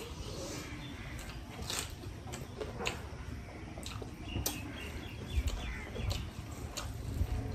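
Quiet eating by hand: scattered soft clicks and smacks as rice is mixed on metal plates and chewed, with faint bird chirps in the background.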